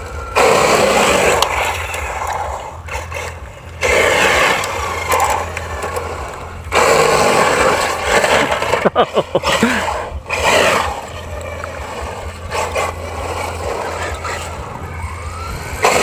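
Large radio-controlled car driving on a paved street, its wheels rolling and scraping on the asphalt with its motor running, coming in several loud surges a few seconds each as it accelerates.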